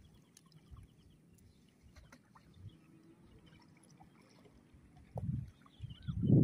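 Shallow seawater lapping and trickling around wading legs and a dripping cast net, with two louder low rushes of water near the end.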